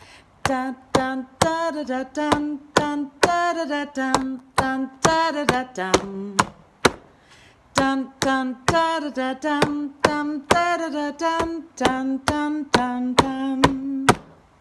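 A woman sings a simple wordless tune on syllables like "dun dun da da da dum" in two phrases. She keeps a steady beat of hand taps drumming on a table under it, about two taps a second, left and right hands alternating.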